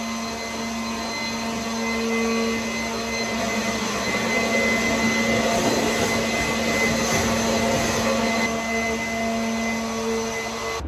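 Vacuum cleaner running steadily with a constant hum and whine, cleaning up repair debris.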